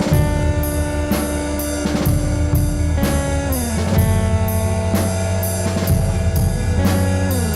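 Instrumental post-rock music: a driving drum beat with about two or three hits a second under sustained guitar notes that slide down in pitch twice.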